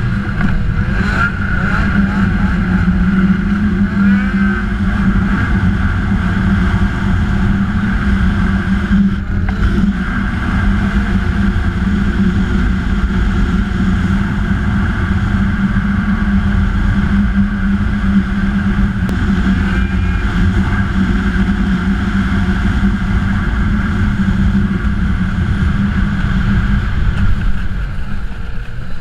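Ski-Doo snowmobile engine running steadily as the sled drives across snow, holding an even pitch.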